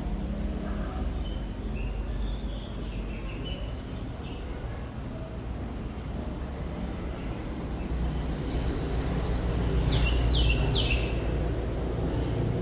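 Thrush nightingale singing: scattered short chirps, then a buzzy trill about halfway through and three quick falling notes near the end. A steady low rumble runs underneath and swells briefly toward the end.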